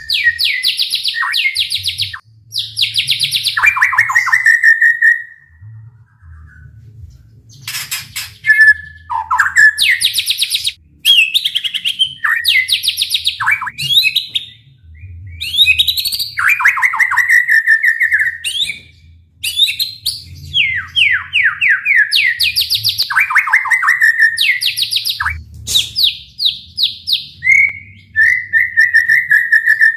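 White-rumped shama (murai batu) singing loudly and without let-up: bursts of rapid, fast-pulsed trills, the rattling 'tembakan' phrases, alternating with falling slurred notes and short whistles, with brief pauses between phrases.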